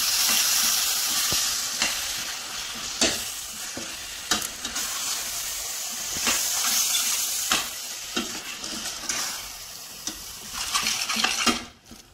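Raw mince sizzling as it fries in a hot stainless steel pot of onions, stirred with a metal spoon that scrapes and knocks against the pot every second or so. The sizzle cuts off suddenly near the end.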